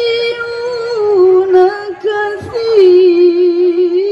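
A single voice over a stage PA, holding long, ornamented notes of a melodic Quran recitation (tilawah). The voice steps down in pitch about a second in and takes a short breath about two seconds in.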